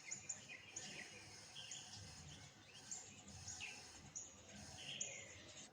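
Faint background birdsong: many short, high chirps and quick falling whistles following one another.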